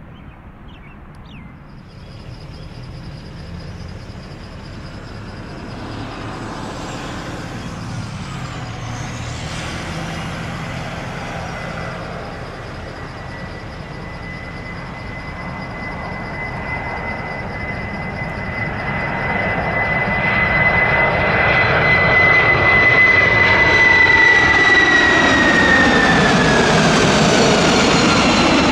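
Boeing 747-400 freighter on final approach, the noise of its four jet engines growing steadily louder as it nears. A steady high whine over the roar drops in pitch near the end as the jet passes close overhead.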